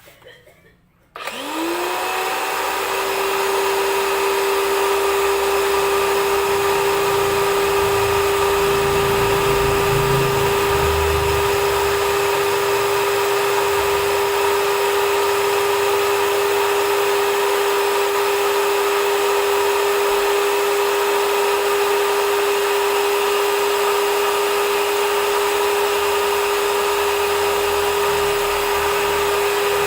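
High-pressure washer with a brushed motor switching on about a second in, spinning up quickly to a steady whine and running on. It is being tested to see whether it can suck water up from a tub through its suction hose, with some uneven low rumbling in the middle.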